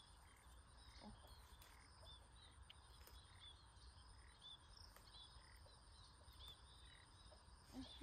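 Near silence: faint outdoor ambience with small, repeated chirping calls of frogs or insects at a pond.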